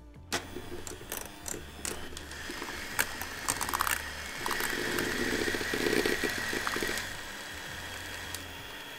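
Electric hand mixer running with its beaters whipping a thick condensed-milk-and-lemon mousse in a glass jug, with clicking and rattling as the beaters knock the glass. It starts suddenly a moment in, is loudest in the middle, then settles to a quieter steady run.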